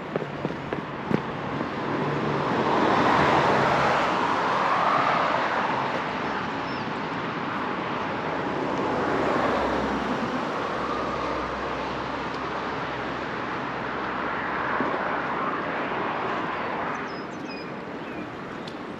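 Road traffic passing close by: several vehicles go by one after another, each swelling and fading as it passes. A few faint bird chirps come near the end.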